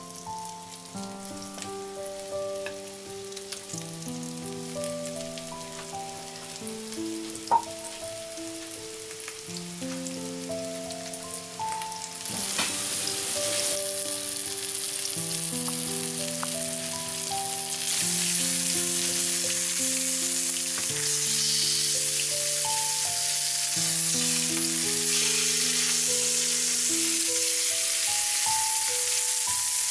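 Salmon fillets frying in clarified butter in a frying pan. The sizzle swells about twelve seconds in and grows louder again from about eighteen seconds, over a gentle melody of background music. A single sharp tap comes about seven seconds in.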